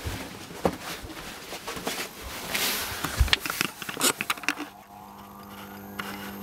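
A few seconds of scattered knocks and rustling, then, about two-thirds of the way in, a steady motor hum sets in and holds. It is most likely the washing machine's drum motor starting up into its high-speed spin.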